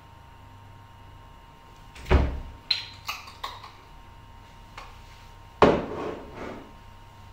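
Kitchen handling sounds: two dull knocks about three and a half seconds apart, with a few light clicks between them, each knock ringing on briefly.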